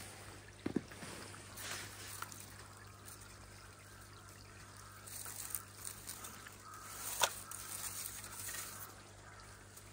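Pond aeration bubbling and burbling as water wells up at the surface, over a steady low hum. A dull thump comes about a second in, and a sharp knock about seven seconds in.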